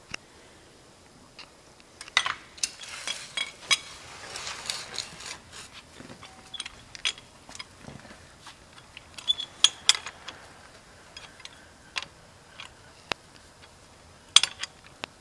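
Irregular metallic clicks, clinks and short rattles of a car's emergency roadside jack and its metal handle, which doubles as the tire iron, being worked to raise the car.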